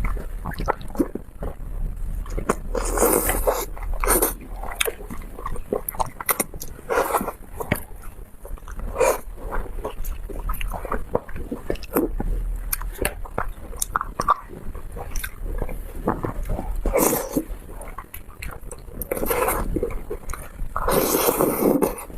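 A person eating close to the microphone: a steady run of wet chewing, biting and lip-smacking clicks, with several longer, louder mouth noises between them.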